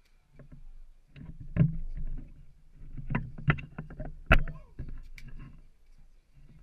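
Landed cobia thrashing on a concrete pier deck: a run of irregular heavy thuds and slaps, the loudest a little over four seconds in, dying down near the end.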